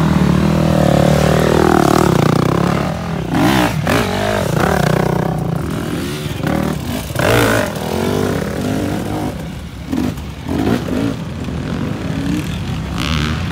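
Enduro motorcycle engine revving up and down under changing throttle, with a few sharp clattering knocks.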